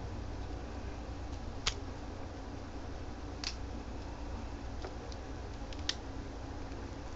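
Small plastic toy parts of a B-Daman clicking as they are handled and fitted together: three sharp clicks about two seconds apart among lighter ticks, over a steady low hum.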